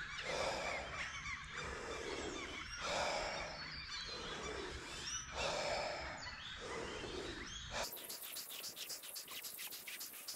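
Rhythmic, forceful deep breathing of breathwork, a full in-and-out breath roughly every second, with birds chirping in the background. The breathing cuts off suddenly about eight seconds in, leaving a faint rapid ticking.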